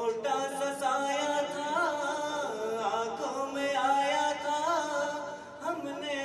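A man singing into a hand-held microphone: long held notes that bend and waver in pitch, starting suddenly.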